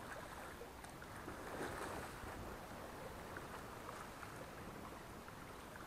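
Low, steady wash of small sea waves against shoreline rocks.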